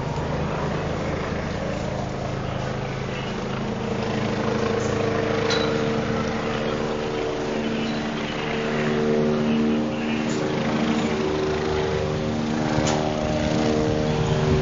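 Steady motor engine drone with several held tones that come and go, with a few sharp knocks partway through.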